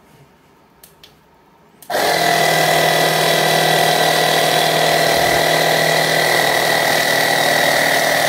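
Peztio cordless tire inflator's electric air compressor starting about two seconds in after a couple of faint clicks, then running loud and steady as it pumps air into a soccer ball through a needle nozzle.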